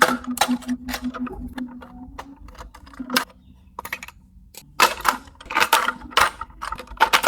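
Plastic toys being handled: irregular sharp clicks and clacks, with a faint steady hum during the first couple of seconds.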